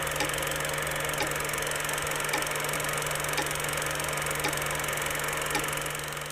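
Film projector sound effect: a steady mechanical whirr and hum with a sharp click about once a second, in step with the countdown numbers, dropping slightly in level near the end.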